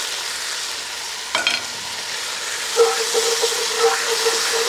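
Onions, peppers and tomato paste sizzling in a hot cast-iron Dutch oven while being stirred, with a short scrape about a second in. A steady hum joins about three seconds in.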